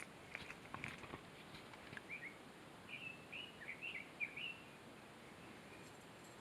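A songbird singing one phrase of short, quickly slurred whistled notes, starting about two seconds in and lasting about two and a half seconds. Before it, a few footsteps and rustles on the trail.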